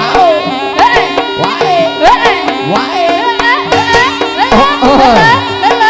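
Live Javanese jaranan music: a reedy melody line with bending, wavering pitch over steady held chime tones, with frequent sharp hand-drum strokes.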